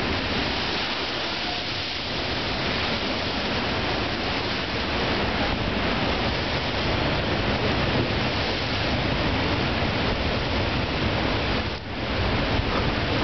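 Gale-force storm surf breaking against a sea wall, a continuous loud rush of water, with strong wind buffeting the microphone.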